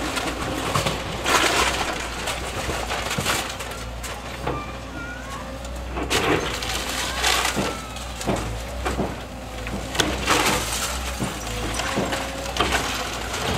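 Excavator crushing and breaking the timber of a house being demolished: repeated irregular cracks and crunches of splintering wood over the steady low rumble of the machine.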